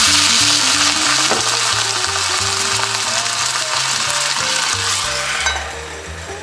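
Water poured into a hot cast-iron skillet of pan-fried gyoza bursts into a loud, steady sizzle: the steam-frying stage. The sizzle drops away sharply about five and a half seconds in.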